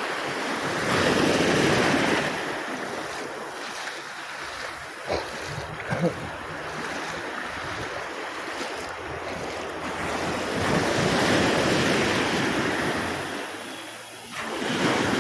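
Sea waves washing around the shallows, the rush swelling twice, with wind buffeting the microphone and a couple of brief splashy knocks about five to six seconds in.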